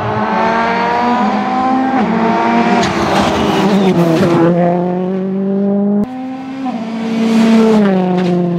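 Ford Fiesta RS WRC rally car with a 1.6-litre turbocharged four-cylinder accelerating hard past at close range, its engine pitch climbing and then dropping sharply at each of several upshifts, with a rush of noise as it goes by about three to four seconds in. After an abrupt cut about six seconds in, a rally car is heard accelerating away, again shifting up twice.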